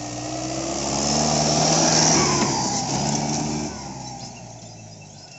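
Diesel engine of a Mahindra 585 tractor fitted with a Holset turbocharger, running under load while the tractor pulls a rotavator through soil. It grows to its loudest about two seconds in, then fades away.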